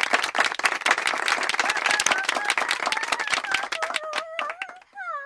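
Applause sound effect: a crowd clapping fast and densely, with a single wavering cheer rising over it in the second half and falling away at the end.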